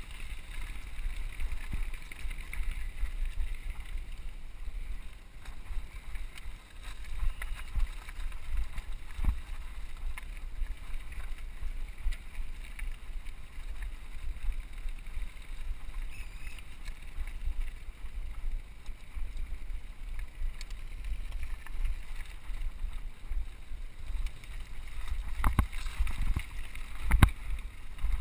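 Helmet-cam recording of a mountain bike riding a gravel cross-country track: wind rumbling on the microphone over the rolling noise of the tyres on loose stones and dirt, with a few sharp knocks from the bike over bumps, the loudest two near the end.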